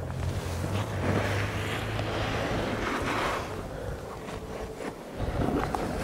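Wind gusting over the microphone, swelling about a second in and dying away after a few seconds, over a low steady hum, with a few light clicks.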